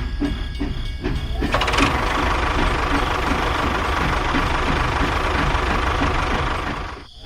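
A small engine runs with a rhythmic knocking pulse of several beats a second. About one and a half seconds in, a loud grinding hiss joins it.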